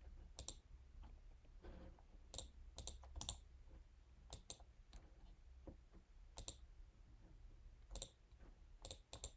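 Quiet computer mouse button clicks, about ten scattered irregularly, a few in quick double-click pairs, over faint low room hum.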